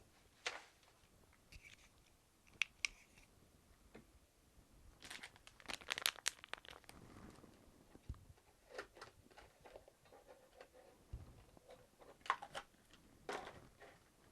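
Hands handling laptop parts: scattered light clicks and rustling, with a quick cluster of clicks about six seconds in and a few more near the end.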